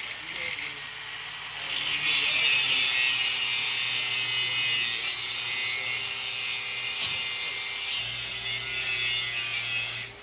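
A power tool running with a steady, hissing, rasping sound. It dips briefly at the start, then holds steady until it cuts off at the end.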